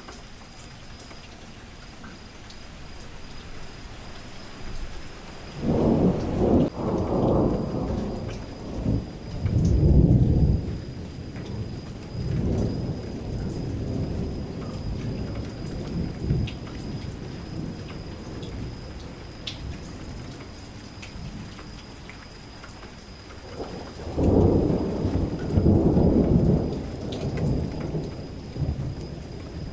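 Rain sound effect: steady rainfall with two long, low rolls of thunder, one starting about six seconds in and another a little before the end.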